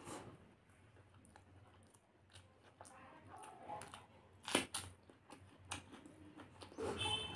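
Close-up eating sounds: fingers mixing rice and wet chewing with small clicks, and one sharp crunch about four and a half seconds in as a whole red dalle chilli is bitten into.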